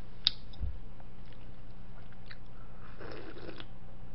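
Eating sounds: a few small clicks and a soft knock, then a short slurping sip from a wooden bowl near the end.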